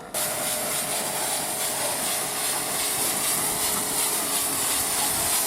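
High-pressure washer jet spraying water, cutting in abruptly and then running as a steady, loud hiss with a faint steady whine from the pump underneath.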